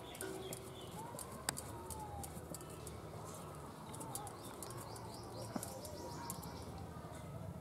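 Doves cooing, with many light clicks and scrapes from a small knife peeling a potato by hand.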